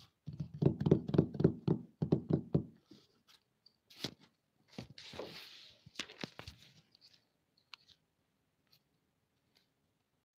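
A quick run of about a dozen knocks in under three seconds, then a few scattered clicks and a brief rustle, in a small room.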